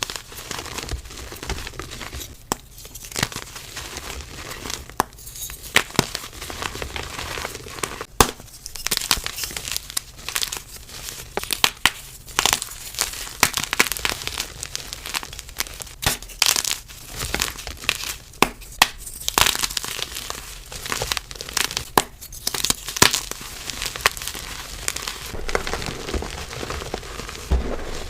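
Soft reformed gym chalk being crushed and crumbled: a dense run of crunchy crackles and small sharp snaps, with brief quieter pauses every few seconds.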